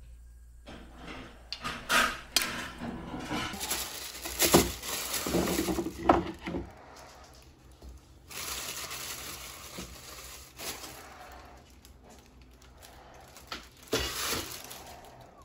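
A plastic bag rustling and things knocking as items are pulled out of a kitchen cabinet, in three bouts of handling with sharp knocks about two seconds in and near the end.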